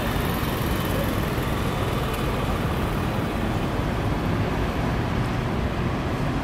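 Steady city traffic noise: a continuous low rumble of road traffic with no distinct events standing out.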